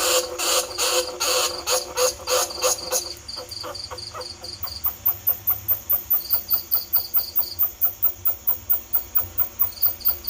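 Bandicoot-rat lure call: a run of rhythmic squeaks, about two to three a second, that changes after about three seconds to quicker, sharper ticks about four a second with short high chirps over them.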